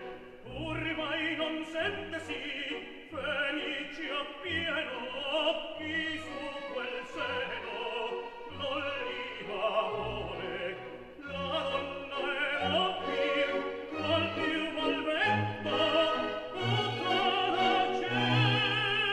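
Operatic singing over an orchestral accompaniment, as a slideshow soundtrack; near the end a voice holds a note with wide vibrato.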